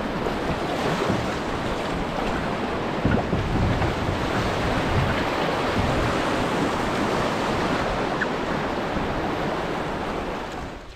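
Whitewater rapids rushing and splashing around a canoe, a steady full roar of moving water, with wind buffeting the microphone. The sound fades out near the end.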